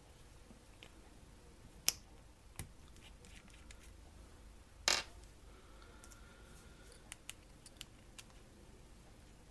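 A few sharp clicks and knocks of small objects being handled on a workbench: one about two seconds in, the loudest about five seconds in, then a quick run of light ticks near the end.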